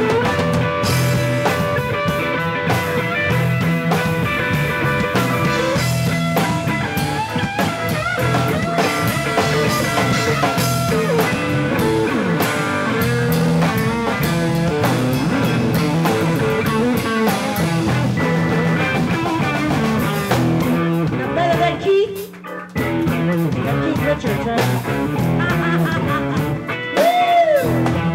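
Live rock band playing a blues-rock groove on electric guitar, bass guitar and drum kit, with a short sudden drop-out of the band about three-quarters of the way through. A woman's singing voice comes in near the end.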